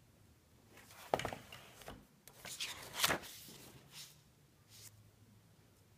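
Paper page of a spiral-bound sketchbook being handled and turned: a light tap about a second in, then paper rustling and swishing, loudest about three seconds in.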